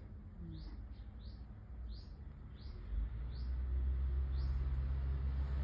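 A small bird chirping one short note over and over, about once every two-thirds of a second. A low rumble comes up about halfway through and grows louder.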